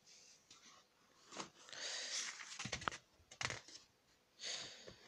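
Pages of a thick paper book being turned by hand: soft paper rustling in two spells, with a few light clicks.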